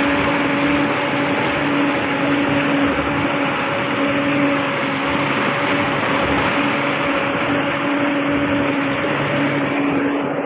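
Honda four-stroke outboard motor running at a steady cruising speed, a constant engine hum over the rushing hiss of its churning wake and spray.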